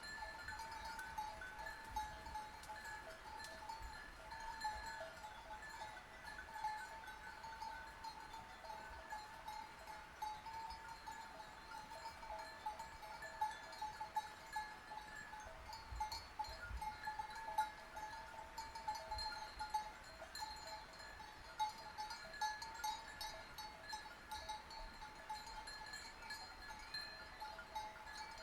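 Bells on a grazing flock of sheep, clanking and jangling continuously at several pitches, with many small bells ringing at once and no pause.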